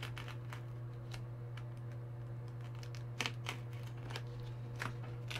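Faint scratching and crinkling of foam edging being cut and worked at a corner, with a few short sharper clicks about three seconds in and again near the end, over a steady low hum.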